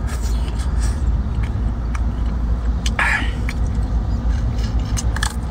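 A person eating cooked crab by hand, with small clicks and a brief slurping suck about three seconds in as meat is drawn from the shell, over a steady low rumble.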